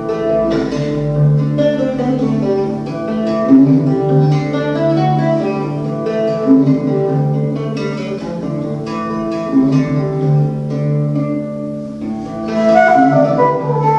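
Live acoustic folk music: a plucked string instrument picks out a melody over a steady low drone.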